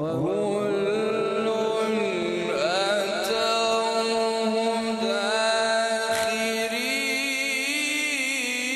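A male qari reciting the Quran in the melodic tilawat style: one voice chanting long, drawn-out notes with melismatic ornaments, amplified through a microphone.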